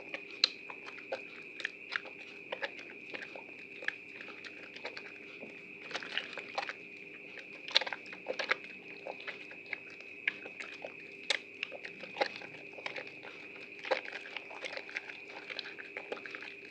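Soaked bar of Prima Protect White soap being squeezed and lathered by hand: irregular wet crunching and squishing crackles, with a faint steady high tone underneath.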